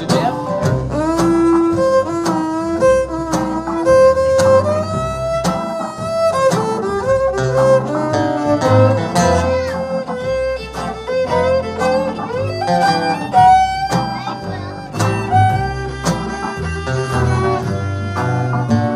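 Several fiddles bowing a blues melody together, backed by the band's upright bass and rhythm section.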